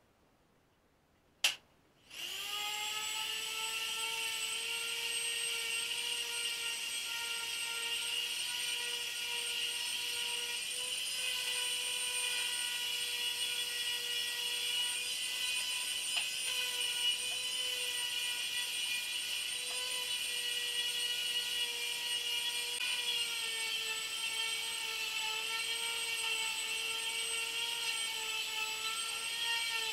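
Electric random orbital sander starting up with a click about two seconds in, then running steadily with a high whine and hiss as it sands wooden bench slats.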